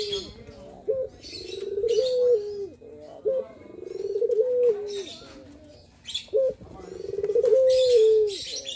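Male Barbary dove (puter) cooing in its advertising call: about three rounds of a short note followed by a long rolling coo that rises, holds and drops at the end. High chirps from small birds sound over the top.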